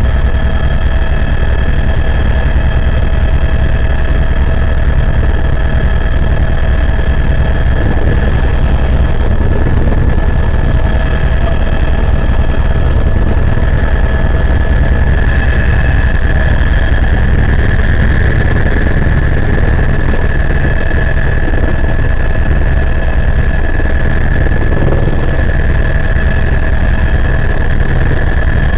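Helicopter in flight heard from inside the cabin: a loud, steady low drone with several steady high-pitched whines on top. One whine grows a little stronger about halfway through.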